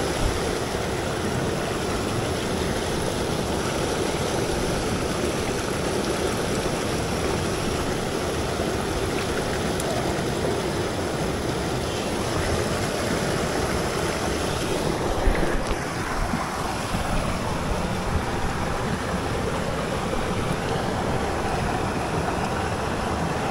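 Mountain headwater stream rushing steadily, with a brief bump about fifteen seconds in.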